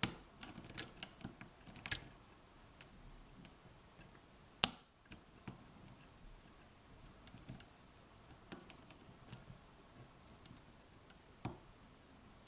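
Faint, scattered metallic clicks and ticks of a lock pick and tension wrench working the pin stack of an Abus 83/45 padlock during single-pin picking, with a cluster of light clicks at the start and one sharper click about four and a half seconds in.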